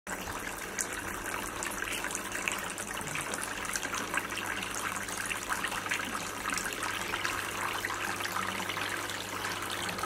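Small styrofoam-and-cement fountain running: water pours from a row of small pipe spouts into a shallow basin in a steady splashing trickle, with a faint steady low hum underneath.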